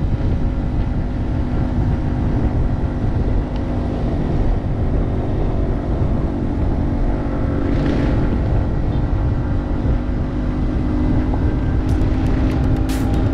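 Yamaha TW200's single-cylinder four-stroke engine running steadily under a moving dual-sport ride, over a heavy low rumble. Its note climbs a little past the middle, and a few sharp ticks come near the end.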